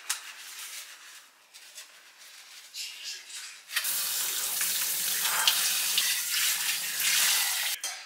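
Dishwashing at a stainless-steel kitchen sink: quiet clinks of dishware being handled, then about four seconds in the kitchen faucet runs, water pouring over hands and a dish being rinsed. It is shut off just before the end.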